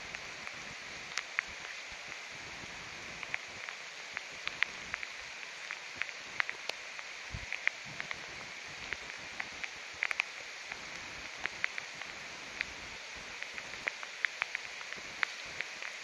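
Steady rain falling: an even hiss with many sharp, irregular drop impacts close by.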